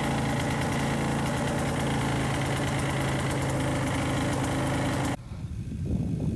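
Snowmobile engine running steadily at an even pitch, stopping abruptly about five seconds in; softer uneven noises follow.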